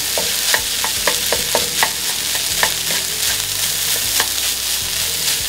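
Leftover rice and scrambled eggs frying in a buttered pan: a steady sizzle, with irregular clicks and scrapes of a utensil stirring against the pan.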